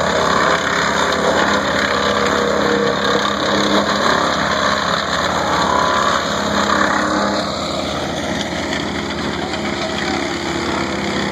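Wood chipper's small petrol engine running loudly and steadily, with a busier stretch that eases off about two-thirds of the way through.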